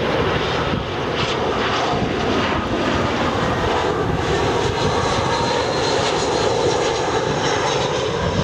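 Airbus A319 airliner on landing approach, its twin turbofan engines running with a loud, steady rumble and whine as it passes low.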